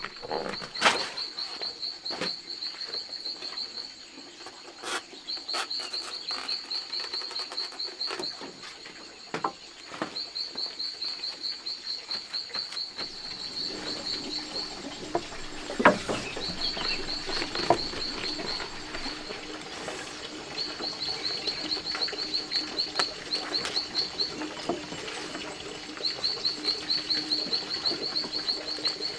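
A bird singing repeated bouts of rapid, even chirps at one high pitch, each bout lasting a few seconds with short pauses between. A few sharp knocks sound over it, the loudest about halfway through.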